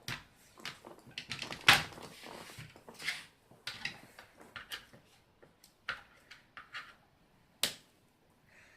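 Miniature figures being handled and set down on a table: a string of light clicks, rustles and knocks, with two sharper knocks, one near the start and one near the end.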